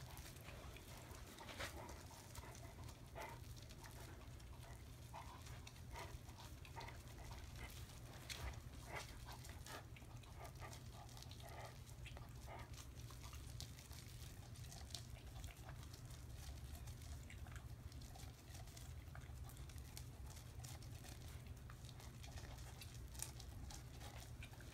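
English cocker spaniel gnawing kernels off a corn cob held in a hand: faint, irregular crunching and clicking of teeth on the cob, over a low steady hum.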